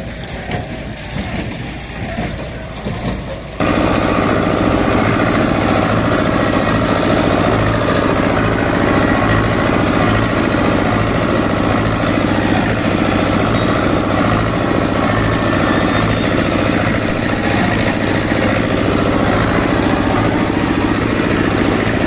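A tractor-drawn square baler working through wheat stubble. About four seconds in there is a sudden jump to the tractor's diesel engine running steadily and louder, heard close from the driver's seat.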